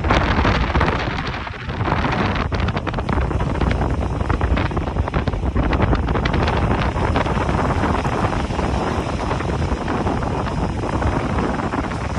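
Wind buffeting a phone microphone: a steady rushing noise with many small crackles, dipping briefly about a second and a half in.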